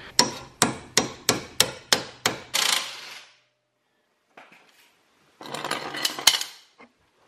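A hammer striking an M14 triple-square (spline) bit to seat it in a seized bolt head: about eight sharp metal-on-metal blows, roughly three a second. About five seconds in comes a short burst of scraping and knocks from the tools.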